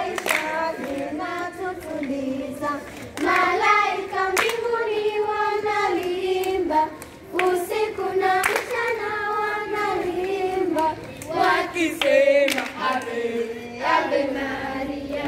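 A group of children singing a song together as they dance, with a few sharp claps among the singing.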